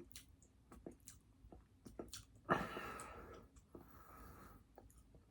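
Close-miked eating sounds: chewing with small mouth clicks and smacks. About halfway through there is a louder breathy sound that fades over about a second.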